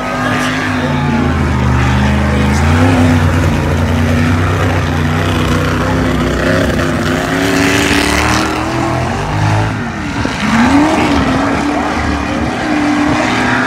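Swamp buggy engines running hard as the buggies race through the water, their note steady for most of the time. About ten seconds in, one engine's pitch rises and then falls.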